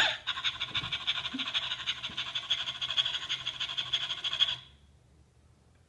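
Animated toy dog's sound effect: a rapid, raspy fluttering sound that runs steadily, then stops about four and a half seconds in.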